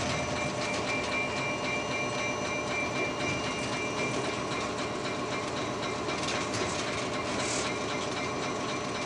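Running noise of a VIA Rail F40PH-2 diesel locomotive heard from inside its cab: a steady drone with a few steady whining tones, and the wheels clicking over the rail joints.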